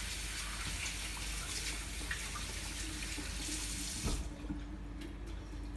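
Kitchen faucet running water as hands are rinsed under it, then turned off with a click about four seconds in.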